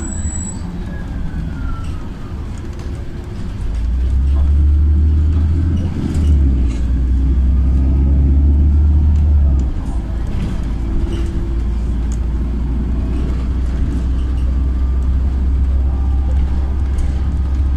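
Cabin sound of a moving LiAZ 5292.67 city bus: a low drone from its YaMZ-53624 natural-gas engine over road noise. The drone grows louder about four seconds in, dips briefly near six seconds, and eases back about ten seconds in.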